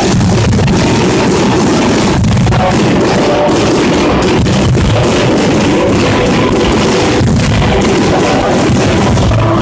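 Fireworks display: many shells bursting in quick succession, loud and continuous, over loud music.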